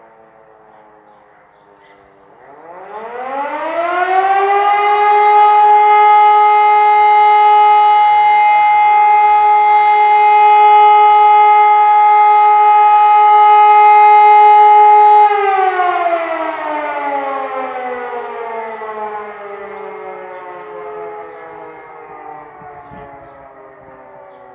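Electromechanical E57 civil-defence siren starting up about two seconds in, rising to a steady tone that holds for about ten seconds, then winding down in a long falling glide that fades out. At the start, fainter distant sirens are heard winding down.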